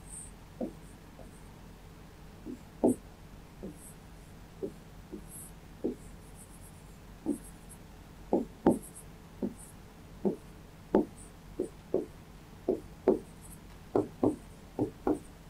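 A pen writing and drawing on a writing board: a string of short, irregular strokes and taps, closer together in the second half.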